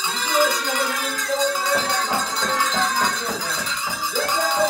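Highland folk music with bells and rattles shaken steadily throughout and a melody on top.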